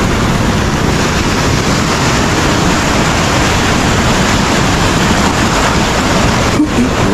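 Ocean surf washing up on the beach, mixed with steady wind buffeting the microphone; a loud, even noise that drops out for a moment near the end.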